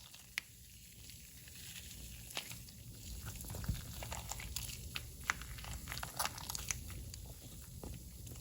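Slime being squeezed and kneaded by hand: a busy run of small sharp pops and crackles, growing denser a couple of seconds in.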